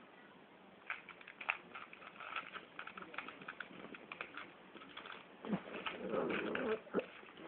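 Pug snuffling and licking with its nose in a cushion: a run of small wet clicks and smacks, then a louder snuffling breath about five and a half seconds in.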